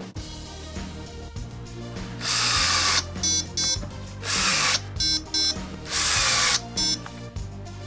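Metabo SB 18 LTX BL I cordless brushless drill driving wood screws in three short runs, each followed by a couple of quick buzzing pulses as its electronic clutch trips and stops the screw. Background music with a steady low beat underneath.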